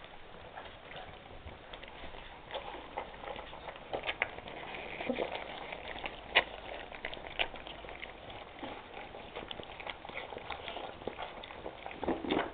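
A litter of 3½-week-old Great Dane puppies eating wet mash from a shared dish: wet smacking and lapping with many small, irregular clicks and ticks. A louder scuffle comes near the end as a puppy pushes against the microphone.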